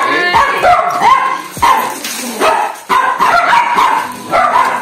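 Small dog barking over and over in short, high yips, several a second with brief pauses.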